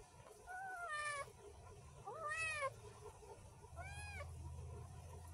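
A small kitten meowing three times, each call bending in pitch, the last one shorter.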